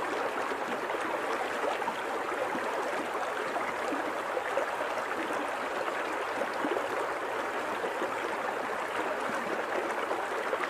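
River water flowing in a steady rush, with a fine, busy texture of small splashes.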